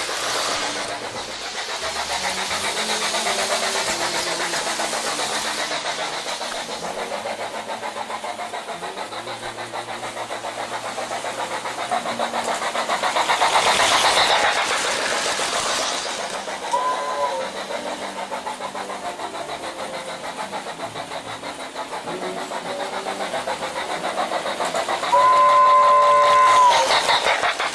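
Lionel electric toy train running on its track: a steady electric motor hum with rapid, even clicking of wheels over the rail joints. It gives a short toot about two-thirds of the way through and a longer two-note whistle near the end.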